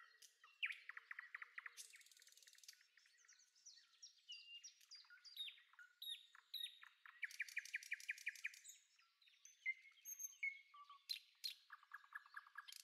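Faint background birdsong: several birds chirping, with rapid trills and short whistled notes.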